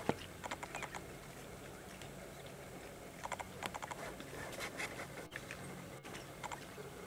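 Common warthog chewing on a piglet carcass: several short clusters of crisp, quick clicks and crunches with pauses between them.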